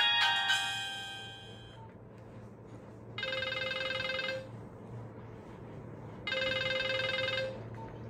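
Nokia 1280 ringtone previews playing from the phone's speaker. A melodic ringtone fades out over the first two seconds. Then a ring-style tone, a rapid buzzy trill, sounds twice, each about a second long and about three seconds apart.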